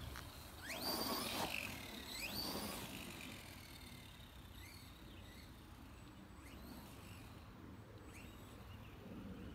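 Electric RC truck's motor whining up in pitch as it accelerates, twice in the first three seconds, with a rough rush of noise as it runs over the grass. Fainter, shorter whines follow as the truck drives farther off.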